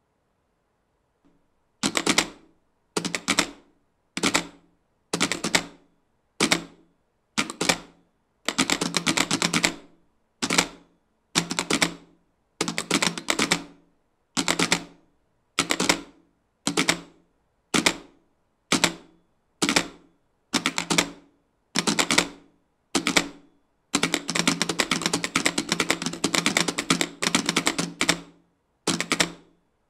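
Bank of telegraph keys clicking rapidly in short bursts, about one burst a second, tapping out words shown on a screen. The clicking starts about two seconds in and near the end runs into one longer unbroken clatter.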